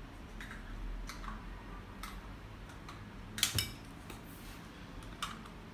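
Light clicks and taps of small plastic parts being handled over foam packaging, with a louder clatter about three and a half seconds in.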